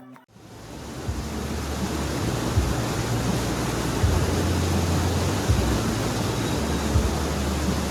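Steady rush of water outdoors, with wind buffeting the microphone in low, uneven gusts.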